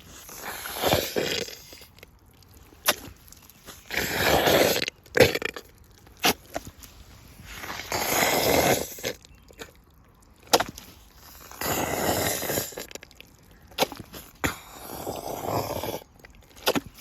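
Rubber boots in mud: five drawn-out squelches, one every three to four seconds, as the boots are pushed into and pulled out of the mud. Short sharp smacks fall between them.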